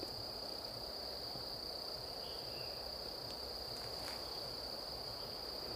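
Insects trilling in a steady, unbroken drone at one high pitch, over a low background hiss.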